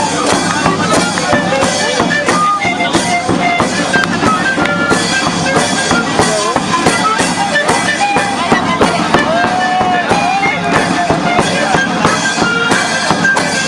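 Drum-led live music with many voices mixed in, loud and steady throughout.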